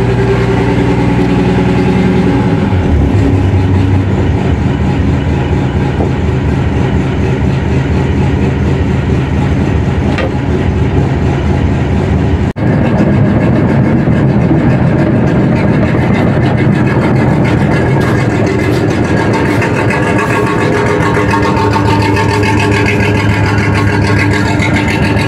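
Boat's main diesel engine running steadily and smoothly on its first run after about a year's lay-up. Its note changes about two and a half seconds in. After a brief break about twelve seconds in, the engine is heard running on near its exhaust outlet on the hull side.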